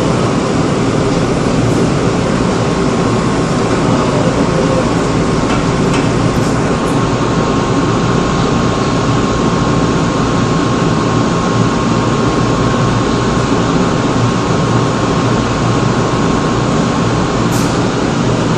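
Old 2000-series resistor-controlled subway train of Seoul Line 2 running, heard from inside the car: a steady, even rumble of wheels on rail and car noise. A thin steady tone sits over it from a couple of seconds in until near the end.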